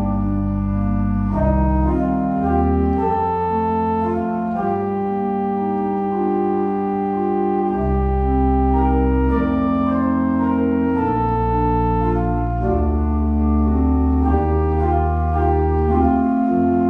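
Pipe organ playing a hymn in slow, sustained chords over a deep pedal bass, the harmony changing every second or two.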